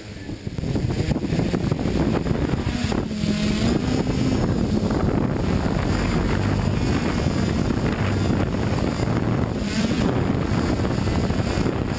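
Multirotor drone's electric motors and propellers spinning up about a second in, then running steadily as it lifts off and hovers.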